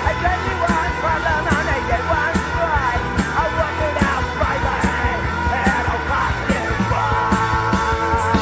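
Punk rock band playing loud and raw in a rehearsal: distorted electric guitar, bass and drums with cymbals on a steady beat, under a shouted vocal. Near the end the guitars hold a steady chord.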